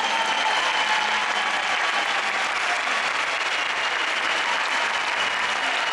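Large arena crowd applauding, a dense, steady clapping.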